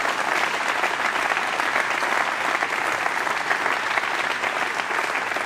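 Audience applauding steadily, a dense even clatter of many hands clapping in approval of a line in a campaign speech.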